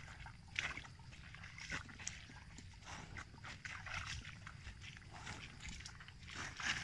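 Water buffalo grazing: irregular rips and crunches as grass is torn off and chewed, under a low rumble.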